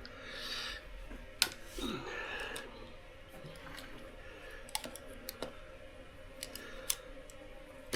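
Scattered light clicks and taps of metal hand tools being handled, with short stretches of soft rustling in the first two seconds or so.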